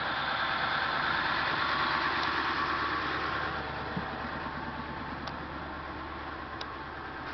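Ford E450 bus's 7.3-litre PowerStroke turbo diesel idling steadily, with a hiss over it that eases off about three and a half seconds in.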